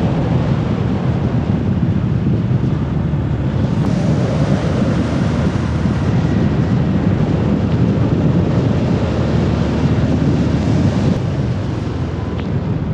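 Steady wind rushing over the microphone of a camera riding on a small 125cc motorbike, with the bike's running engine and road noise underneath.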